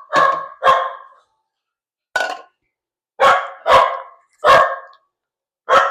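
A dog barking loudly, about seven sharp barks in short groups of two or three.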